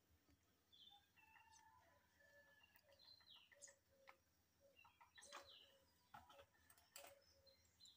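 Near silence, with faint chicken clucking in the background: short, scattered pitched calls.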